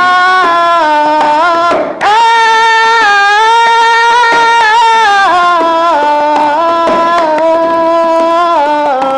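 A high voice singing a slow melody in long held notes that slide between pitches, breaking briefly about two seconds in, over light, evenly spaced tapping.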